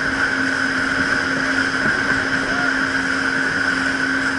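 Jet ski engine running at a steady cruising speed, its even engine note over the rush of water and spray.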